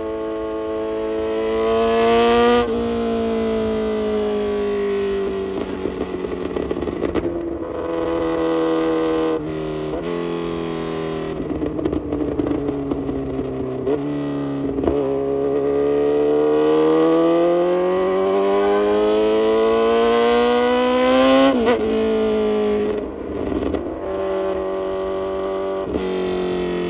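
2022 Kawasaki Z900's inline-four engine through an aftermarket full exhaust, revving up and down as the bike is ridden. The pitch climbs and drops sharply at a shift about two and a half seconds in. It sags and holds through a couple more drops, then makes one long climb from about fifteen seconds that cuts off suddenly about twenty-one seconds in.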